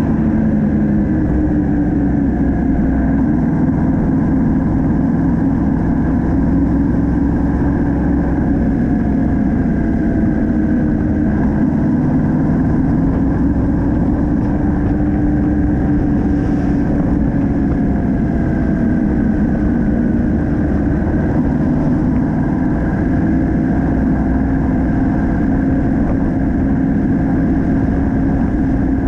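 Yamaha MT-07's 689 cc parallel-twin engine running steadily while riding at road speed, its pitch wavering a little with small throttle changes, over a steady rush of wind noise.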